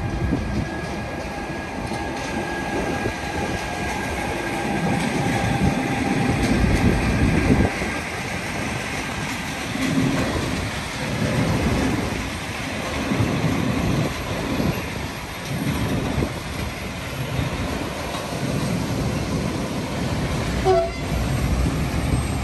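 Freight train passing close by: a Renfe electric locomotive followed by a long rake of wagons loaded with steel coils and bars, the wheels rumbling and clattering steadily over the rails.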